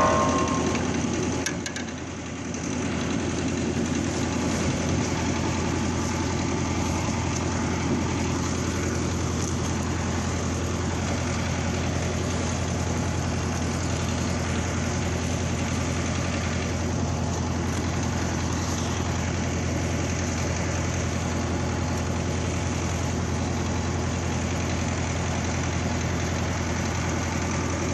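Vladimirets T-25 tractor's two-cylinder air-cooled diesel engine running steadily at idle, with a low, even hum. The level dips briefly about two seconds in, then holds steady.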